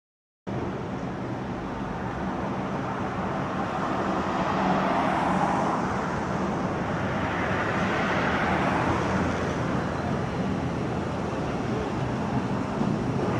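Road traffic on a city street, starting abruptly about half a second in: a steady rushing noise with a low hum, swelling twice as vehicles pass.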